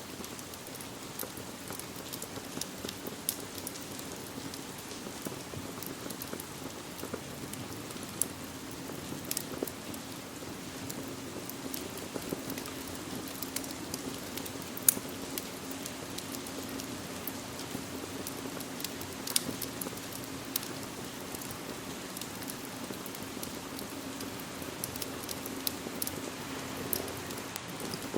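Steady rain, with scattered sharp pops and crackles from a wood fire in a fireplace.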